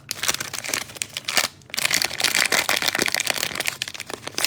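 Cellophane trading-card pack wrapper crinkling and cards being handled and flipped through, a dense run of small crackles and clicks with a brief pause about one and a half seconds in.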